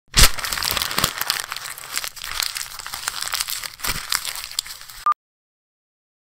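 Paper crinkling and tearing: a dense crackle of small clicks lasting about five seconds that cuts off abruptly with a short beep.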